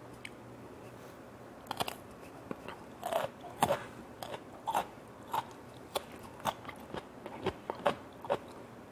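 Close-up crunching and chewing of raw carrot in the mouth: crisp, crackly bites about twice a second, starting a little under two seconds in.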